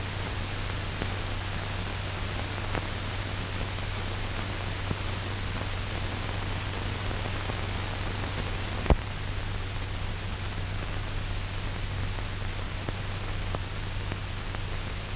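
Steady hiss and a low hum of an old optical film soundtrack, with nothing else playing. A single sharp pop about nine seconds in.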